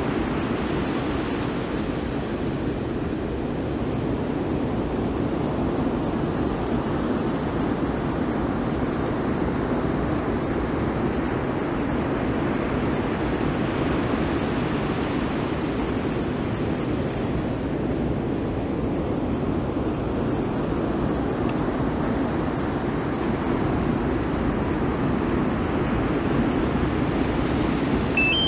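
Ocean surf breaking and washing up a beach: a steady rush that swells and eases slowly a few times. A single short electronic beep comes right at the end.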